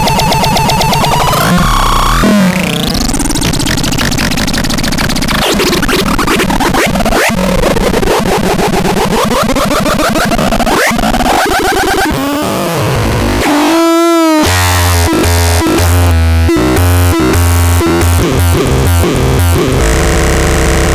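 Harsh, noisy synthesizer sounds: dense buzzing tones that glide up and down in pitch, with a falling sweep about two-thirds of the way through, followed by a pulsing low bass rhythm.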